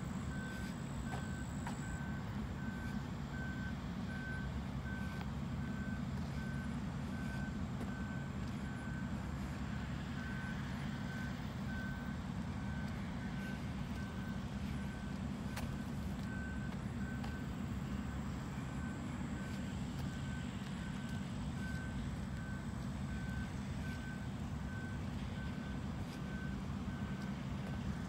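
A vehicle's reversing alarm beeping in a steady, even rhythm, one high tone repeated, over a steady low rumble.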